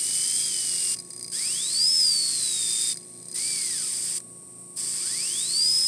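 Paasche AB turbo airbrush running on compressed air: a hiss of air cut off three times as the air valve is let go, with the whine of its small turbine wheel climbing steeply in pitch each time the air comes back on and sinking again as it runs. It spins up once more near the end.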